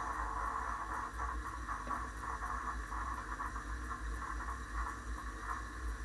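Bosch dishwasher running mid-cycle, heard from inside the tub: a steady low hum under a fluctuating hiss of water.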